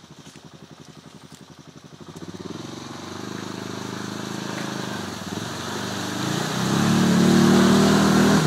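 Quad (ATV) engine idling with an even low pulse, then revving up from about two seconds in as the quad ploughs through deep mud and water, with churning and splashing. It is loudest near the end, as the engine labours with the quad sunk in the mud.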